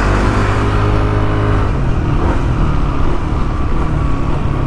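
Yamaha NMAX 155 scooter's single-cylinder engine running while riding, its note shifting about two seconds in.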